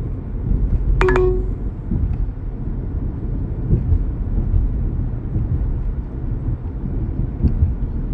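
Road and engine noise heard inside a moving car's cabin, a steady low rumble. About a second in there is a brief short tone.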